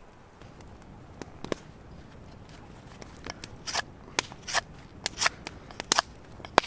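A large bushcraft knife making short, sharp cutting strokes. They come sparse at first and faster and louder from about halfway through.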